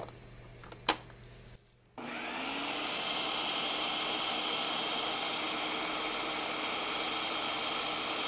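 Countertop blender running on a thick pesto: a single click about a second in, then the motor spins up about two seconds in and runs steadily with a high whine.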